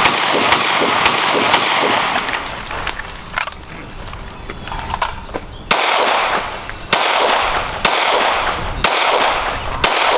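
Rifle shots from several shooters on a firing line, each sharp crack trailing off in an echo. They come about every half second for the first two seconds, thin out briefly, then pick up again at roughly one a second.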